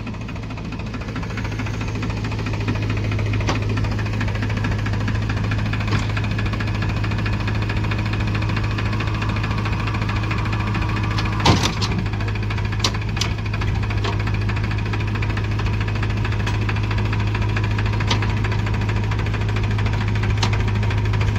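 Powertrac tractor's diesel engine running steadily at raised throttle, building a little over the first two seconds and then holding. A few sharp clicks or knocks sound over it, the loudest about eleven and a half seconds in.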